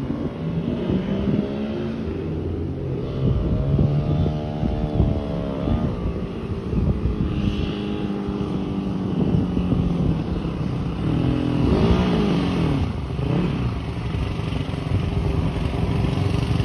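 Yamaha YZ450F four-stroke single-cylinder dirt bike engine running as it is ridden, its pitch rising and falling as the throttle opens and closes. It grows louder near the end as the bike comes back close.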